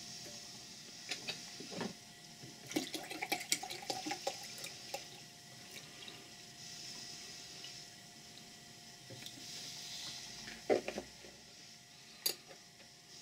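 Water poured from a plastic jug into a brass tank, a steady splashing hiss as it fills. Light metallic clinks of the brass lid come in the first few seconds, and two sharp knocks near the end as the lid is set back on.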